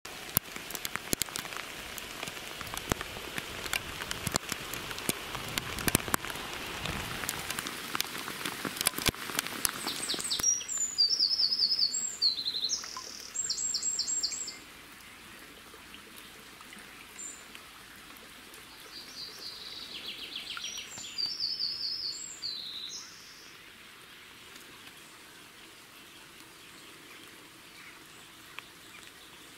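Rain falling, with many sharp drop hits, for about the first ten seconds. After that a songbird sings two short phrases of rapid, high repeated notes a few seconds apart, over faint wet-weather background sound.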